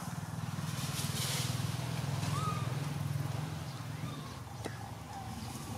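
Outdoor ambience: a steady low hum throughout, with a brief high hiss about a second in, a single short squeak about halfway through and a faint click near the end.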